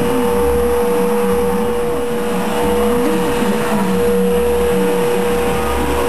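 Steady machine whine from a small motor, with a lower hum that wavers up and down in pitch and a low rumble that swells and fades about once a second.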